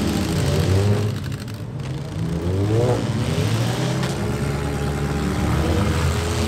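Compact demolition-derby cars' engines running together, loud and continuous, with one engine revving up and down about two to three seconds in as the cars shove against each other.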